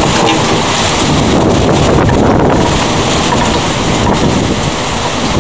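Thunderstorm noise: a loud, steady rush of wind and rain, with wind buffeting the microphone.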